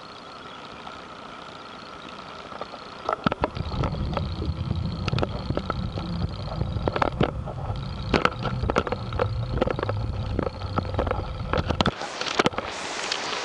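Handling noise from a handheld camcorder carried at arm's length: a low rubbing rumble full of irregular clicks and knocks. Near the end the steady rush of water pouring over a canal lock weir rises.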